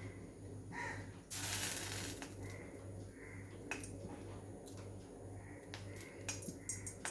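Kitchen utensils clicking and tapping against dishes several times, with a hiss lasting about a second near the start, over a steady low hum.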